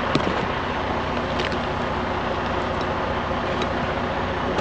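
Freightliner semi truck's diesel engine idling steadily, with a few faint clicks over it.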